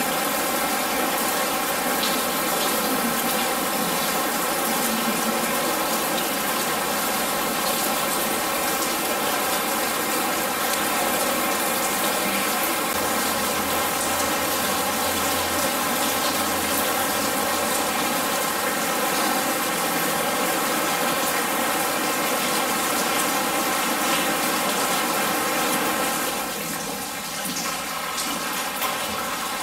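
Man-made indoor rain from an art installation: a steady rush of water falling onto a corrugated-metal shack and a wet floor. It eases slightly near the end.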